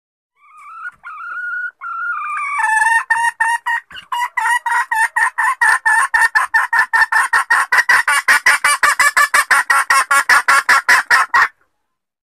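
Junglefowl hen calling: a few drawn-out notes, then a fast, even run of short clucking notes, about five a second, that cuts off abruptly near the end. The call is offered as a hen calling for a mate, used as a lure for wild junglefowl.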